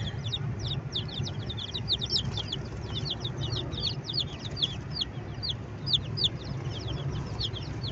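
A group of young crossbred ('melhorado') chicks peeping continuously: many short, high-pitched peeps that slide downward, several a second, overlapping one another.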